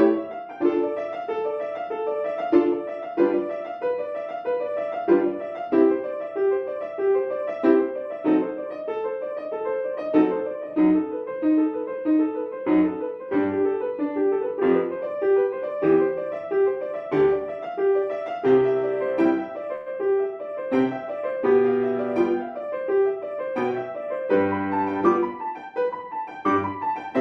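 Solo grand piano playing a fast run of notes in the middle register. From about two-thirds of the way in, heavier chords and low bass notes join.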